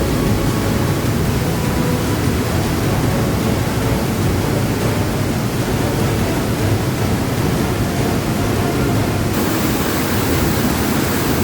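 Underground waterfall: a powerful mountain stream plunging about 18 metres down rock in a cave, heard from close below as a loud, steady rush of falling water. Its hiss brightens about nine seconds in.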